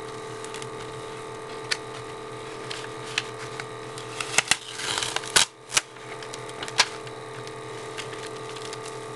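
Adhesive vinyl and transfer tape being handled and pressed down: scattered light clicks and taps, with a short burst of crinkling and peeling about four to six seconds in, over a steady low hum.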